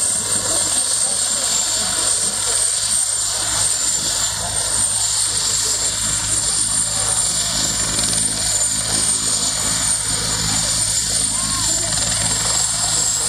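Helicopter running on the ground: a steady high-pitched turbine whine over a fast, even low beat from the rotor.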